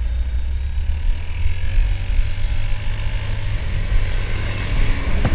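Motor scooter riding along a road: the engine running steadily under heavy, low wind rumble on the microphone.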